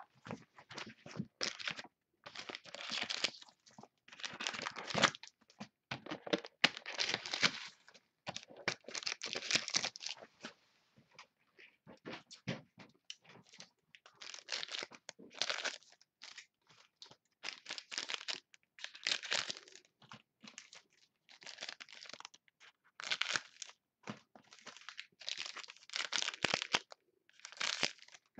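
Plastic wrapping on a sealed trading-card box and its packs being torn and crinkled by hand: irregular bursts of rustling and tearing with short pauses between them.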